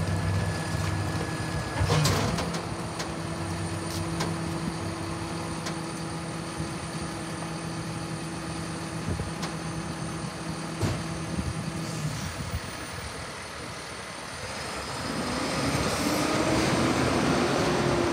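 Rear-loader garbage truck running with its engine and hydraulics at a steady pitch while the cart tipper and packer work, with a sharp bang about two seconds in as a cart is emptied into the hopper. Near the end the engine revs up with a rising pitch as the truck pulls away.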